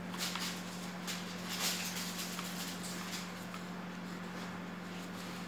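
Rustling and brushing of gloved hands rolling shredded kunafa dough on a wooden board, busiest in the first two seconds. A steady low hum runs underneath.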